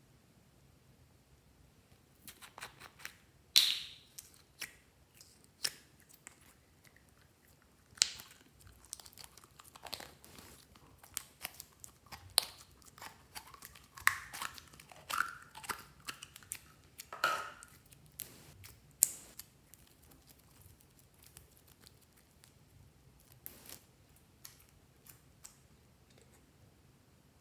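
A few sharp clicks from a small plastic slime container, then thick slime squeezed out of it with sticky crackling and popping, busiest around the middle.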